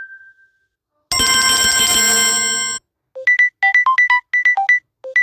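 Samsung Galaxy A21 ringtone previews played one after another on the phone, as tones are tapped in the ringtone list. A short chime dies away at the start. After a second of silence a bright, sustained chord plays for under two seconds and then stops. A quick, repeating melody of short high notes follows, starting about three seconds in.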